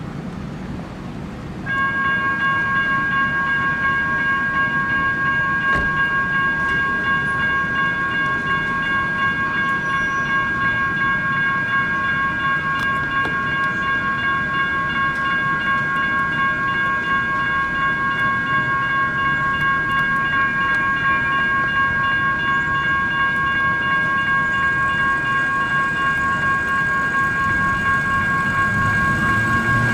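Railroad crossing warning bell starts suddenly about two seconds in as the signals activate, then rings on in a rapid, steady, high-pitched ding. A low rumble rises near the end.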